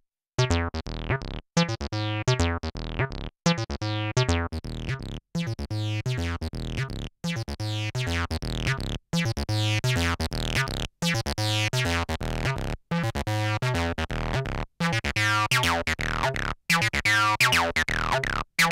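Behringer TD-3 analog bass line synthesizer, a Roland TB-303 clone, playing a looping acid bass sequence through its built-in distortion, each note's filter sweeping shut. A short gap breaks the line about every two seconds. The cutoff and resonance are turned by hand, and the sound grows brighter and more resonant near the end.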